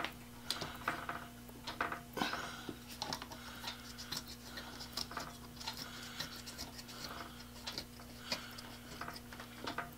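Handling noise from a Dremel rotary tool being seated and clamped in a hobby drill press holder: scattered small clicks, taps and rubbing of plastic and metal, over a steady low hum.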